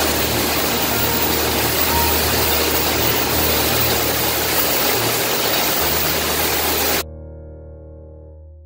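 Bottling-line machinery running: conveyors and a bottle filler make a loud, steady noise with a low pulsing hum. It cuts off suddenly about seven seconds in, leaving a few faint held tones that fade away.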